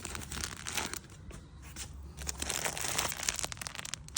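Packet of fishing groundbait crinkling and rustling as it is handled, in an irregular run of small crackles.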